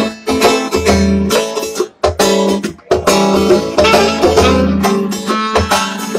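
Guitar music: rhythmic strummed chords over deep bass notes, with two brief breaks about two and three seconds in.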